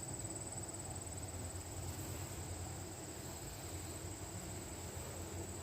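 Wind buffeting the microphone: a steady, fluttering low rumble, with a faint thin high-pitched tone held throughout.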